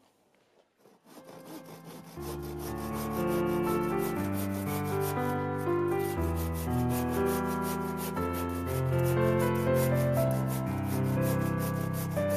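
Background music starts about two seconds in: held chords over a fast, even ticking rhythm.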